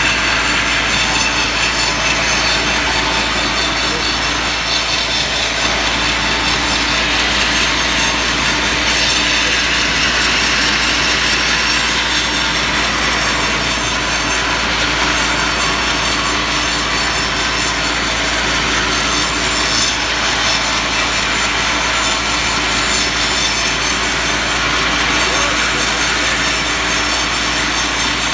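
Power saw blade cutting steadily through ulin (Bornean ironwood) timber, a loud, continuous rasping without a break.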